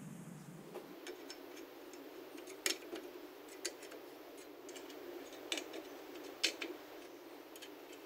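A handful of light metallic clicks, a second or two apart, from a spoke wrench turning the nipples on stainless steel spokes of a dirt bike wheel. The loose spokes are being tightened to pull the rim sideways and true it.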